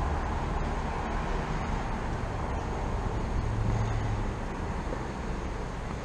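Steady low rumbling background noise, with a low hum that swells briefly about three and a half seconds in.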